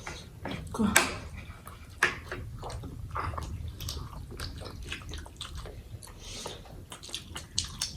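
Close-up eating sounds: momo being bitten and chewed, with wet, irregular mouth clicks and smacks.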